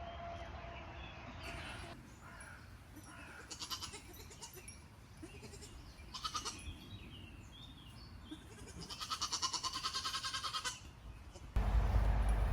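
Goats bleating three times, the last bleat long and quavering, about two seconds. Small birds chirp between the calls, and a loud low rumble cuts in near the end.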